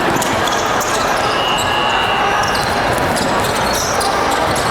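Basketball being dribbled on a gym floor over a steady din of many voices echoing in a large hall.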